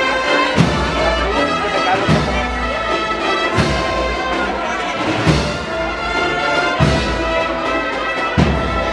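Spanish processional agrupación musical playing a march: held brass lines over a bass drum struck about every second and a half.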